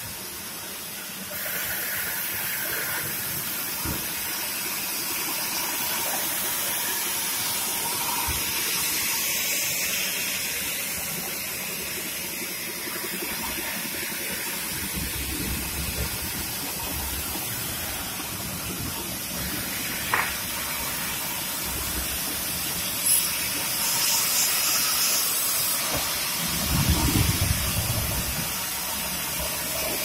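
Sawmill carriage band saw cutting a log: a steady, hissing noise from the blade running through the wood. A couple of sharp knocks come past the middle, and a low rumble near the end.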